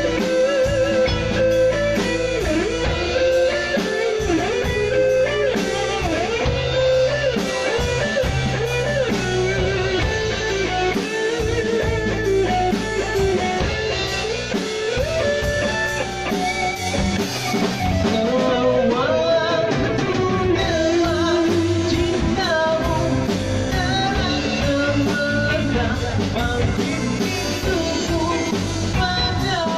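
Live band playing a reggae arrangement on electric guitar, bass guitar, drum kit and keyboard, with pitch-bending melody lines over a steady beat.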